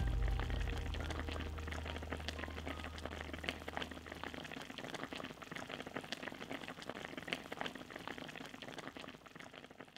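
Pot of braised tofu rolls (Shanghai 'vegan chicken') simmering in its braising liquid: dense bubbling with many small crackling pops, slowly fading. A low drone runs under it for the first few seconds, then dies away.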